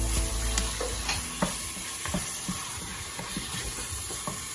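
Ground chicken and onions sizzling in a ceramic-lined nonstick pot while a wooden spoon stirs and scrapes through them, with irregular light knocks of the spoon against the pot, the sharpest about a second and a half in. The meat is being browned before the other sauce ingredients go in.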